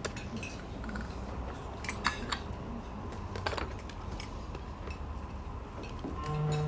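A few light clinks of cups, saucers and spoons over a low background murmur, then near the end a hooter starts: one steady low horn note.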